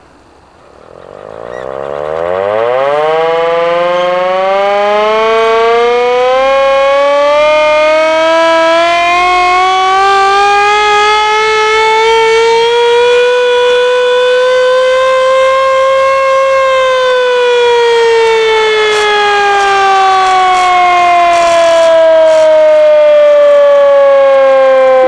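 Hand-cranked air raid siren made by Carter Nelson, wound up from rest for an all-clear. Its wail climbs quickly over the first few seconds, keeps rising slowly to a peak about sixteen seconds in, then falls slowly while staying loud.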